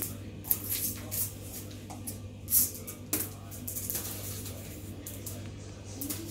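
A few short rustling swishes and light clicks from a stick toy being waved for cats, the loudest about two and a half seconds in, over a steady low hum.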